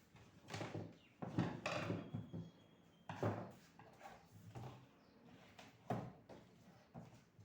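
Exhaust fan being handled and taken apart on the bench: irregular knocks, clatters and scrapes, the loudest cluster between one and two seconds in and a sharp knock near the end.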